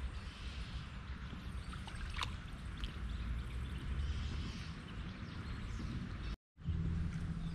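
Steady river ambience: running water as an even hiss, with a low rumble underneath and a few faint clicks. It cuts out completely for a moment about six seconds in.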